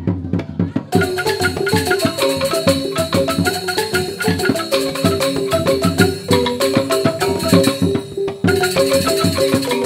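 Balinese joged bumbung gamelan: drum strokes alone at first, then about a second in the bamboo xylophones (grantang) come in with a fast, dense run of struck notes over the drums.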